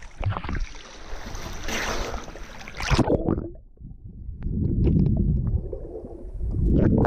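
Sea water at a camera held at the surface: splashing and lapping at first, then about three seconds in the camera goes under and the sound turns to a low, muffled underwater rumble with a few faint clicks.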